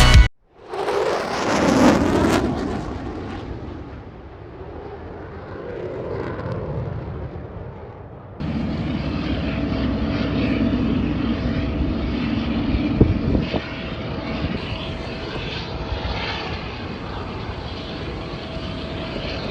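Jet airliner engine noise: a loud swell in the first couple of seconds that fades away, then, after an abrupt change about eight seconds in, a steady engine drone with a faint steady whine.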